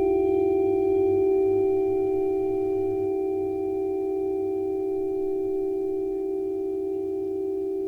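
A sustained ringing tone, a low pure pitch with a higher overtone and a slight wobble, slowly fading.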